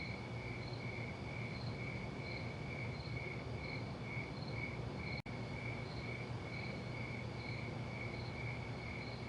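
Crickets chirping in an even rhythm, about two to three chirps a second, over a low steady hum; the sound cuts out for an instant about five seconds in.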